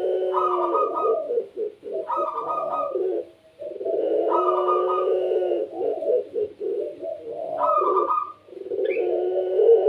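Puter pelung, a domestic ringneck dove, cooing repeatedly in long rolling phrases with brief pauses between them.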